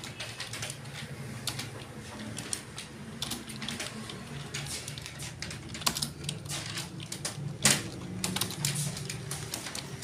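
Typing on an HP computer keyboard: a stream of uneven key clicks, with two louder key strikes about six and eight seconds in.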